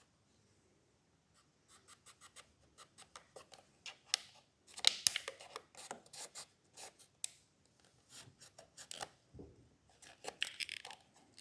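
A piece of plastic packaging scraping and clicking in the gap around the stuck right-click button of an HP 250 G7 laptop's touchpad, to loosen debris jamming the button. The ticks and scratches are quick and irregular and begin about two seconds in.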